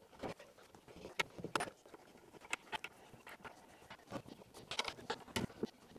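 Irregular light clicks and taps of bolts, cross-dowel hardware and the wooden table top being handled as a router table top is fastened to its base.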